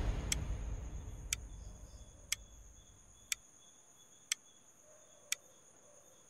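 A clock ticking slowly, one sharp tick a second, as the tail of a deep boom fades out over the first couple of seconds.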